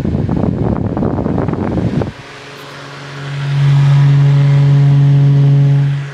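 Holmes Blizzard high-velocity pedestal fan running on low, its air stream buffeting the microphone with a fluttering rush that cuts off suddenly about two seconds in. A steady low motor hum then swells up, holds, and stops just before the end.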